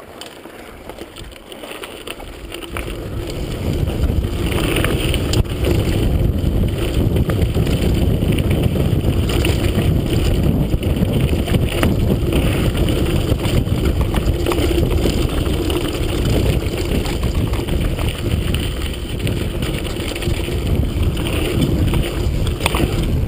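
Wind rushing over a chest-mounted camera's microphone as a mountain bike rides down a dirt trail, with the tyres rolling on dirt and scattered clicks and rattles from the bike over bumps. The noise builds over the first few seconds as the bike picks up speed, then stays loud and steady.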